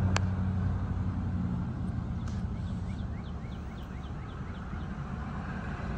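Steady low rumble of a motor vehicle engine, with a quick run of short, high bird chirps in the middle and a single click just after the start.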